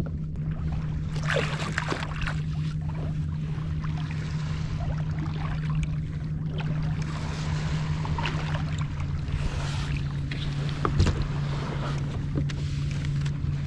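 Wind on the microphone and water lapping at a sit-on-top fishing kayak at sea, with a steady low hum underneath and scattered small knocks and splashes.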